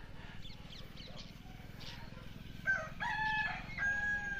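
A rooster crowing once, starting a little past the middle: a short note, then longer held notes, the last drawn out.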